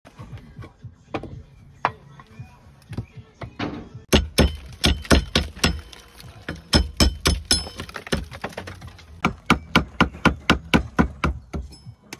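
Slater's hammer striking on a slate roof: a few scattered knocks, then from about four seconds in quick runs of sharp blows, about four a second, with short pauses between runs, as the roofer lays the slates.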